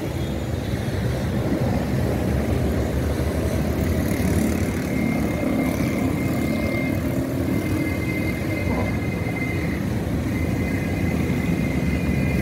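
Steady drone of engines and street traffic, with a faint high whine that comes and goes from about four seconds in.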